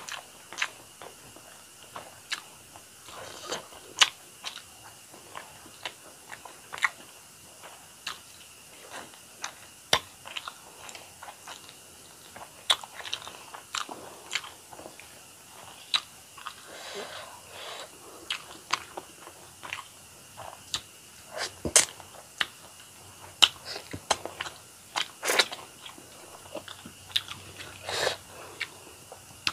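Close-miked chewing of a mouthful of rice and fish curry, with many irregular wet mouth clicks and smacks.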